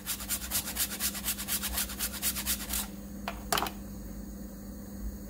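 Frozen ginger being grated on a handheld stainless steel grater: quick, even rasping strokes, about six a second, that stop about three seconds in. Two sharp knocks follow as the grater is set down on the cutting board.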